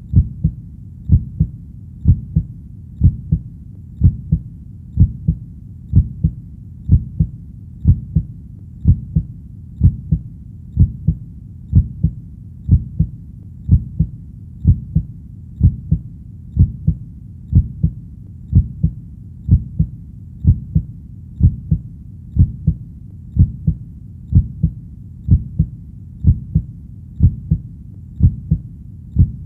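Heartbeat: a steady lub-dub double thump about once a second, low in pitch, over a faint low hum.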